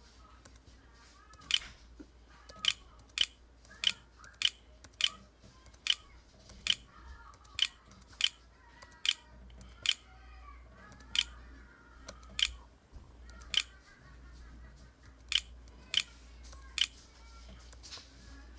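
Computer mouse button clicking, about eighteen sharp single clicks at uneven intervals of roughly half a second to a second and a half, over faint music.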